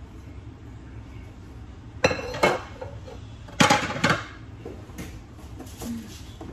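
Metal utensil knocking and clinking against a dish: two pairs of sharp, ringing clinks about two and three and a half seconds in, then a few lighter taps.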